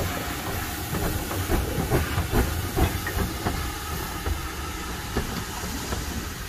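Steam locomotive hissing steam, with a run of irregular knocks and clanks that are busiest a couple of seconds in.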